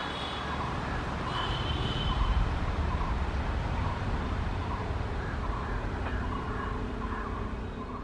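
Passenger trains rolling away on parallel tracks: a steady low rumble of coaches and wheels on the rails, with a brief high-pitched squeal about a second and a half in.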